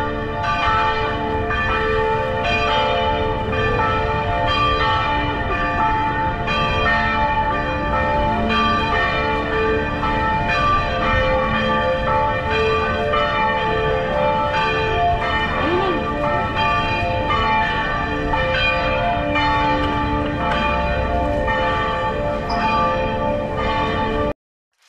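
Church bells pealing: several bells struck over and over, their tones overlapping and ringing on, until the sound cuts off suddenly near the end.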